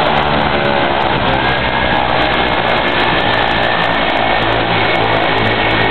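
De Havilland Canada DHC-6 Twin Otter's turboprop engines running on the ground after landing: a loud, steady propeller and engine noise with a faint high turbine whine.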